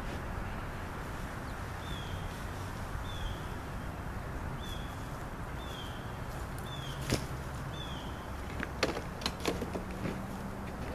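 Grass-catcher bag being fitted back onto a Troy-Bilt TB360 walk-behind mower: a few sharp plastic knocks and clatters in the second half, over a steady low hum. A bird repeats a short falling chirp about once a second.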